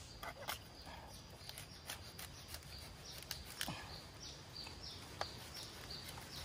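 Faint outdoor plantation ambience: scattered clicks and rustles, and from about halfway through a run of short, high, falling chirps, about three a second, from a small animal.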